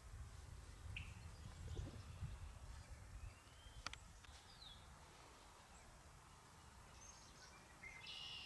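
Quiet outdoor ambience with a few faint, high bird chirps and short gliding calls, the clearest near the end. A low rumble runs through the first three seconds, and a single sharp click comes about four seconds in.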